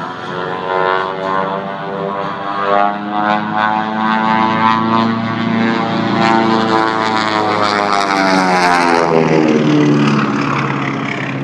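Propeller aircraft engine running as an aerobatic plane flies past, growing louder and then dropping in pitch as it goes by.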